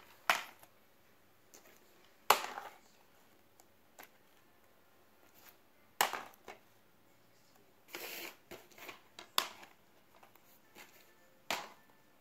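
Plastic DVD cases being put down and shifted on a tile floor: about six sharp clacks spread through the stretch, one near the middle longer and scraping, with quiet handling in between.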